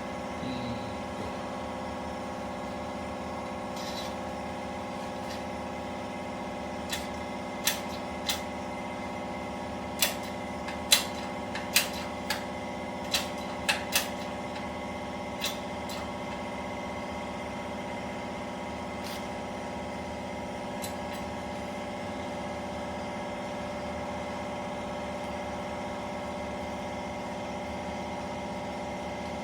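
A small electric motor running with a steady, even hum. About a third of the way in, a run of about ten sharp clicks and knocks sounds over it.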